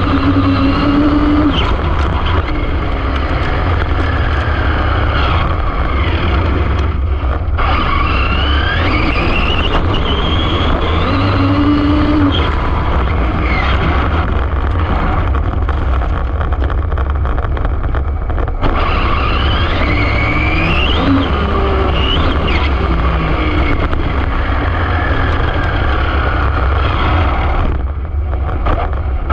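Arrma Infraction 6S brushless RC car running flat out, its motor whine rising and falling repeatedly with the throttle over heavy wind and tyre rumble on the car's onboard camera. The whine drops away briefly about a quarter of the way in, again past the middle, and near the end.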